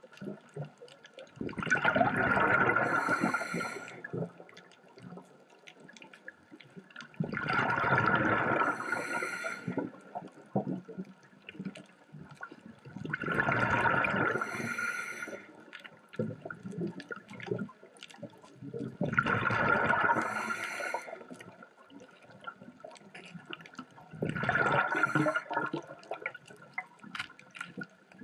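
Scuba diver's regulator underwater: five exhalations, each a burst of bubbling about two seconds long, coming roughly every six seconds with quieter stretches between.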